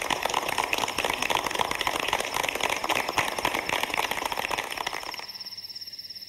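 Many hands clapping together in a dense, irregular patter over a steady, rapidly pulsing high chirp like crickets; the clapping fades about five seconds in, leaving the chirping alone.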